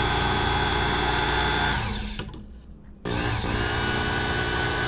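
Ken Onion Work Sharp belt sharpener's motor running a fine belt at speed, winding down and stopping about two seconds in, then switched back on a second later and running steadily.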